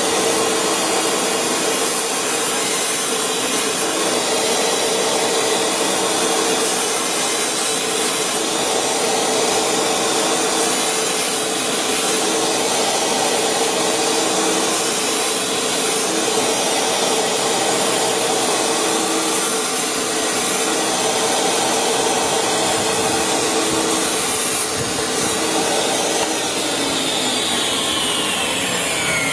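Power saw with a diamond blade running and cutting across an iPhone 6S's glass and body: a steady, loud cutting noise with a whine over it. Near the end a whine falls steadily in pitch.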